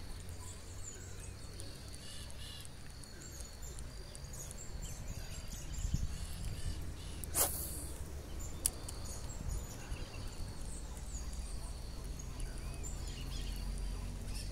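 Small birds chirping and calling over a low steady rumble, with a sharp click about seven seconds in and a fainter click a second later.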